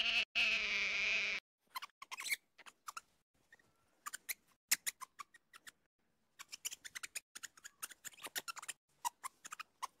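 An otter's whining call, about a second and a half long, at the start. Then a scatter of short sharp clicks and ticks, sparse at first and coming thickly through the second half.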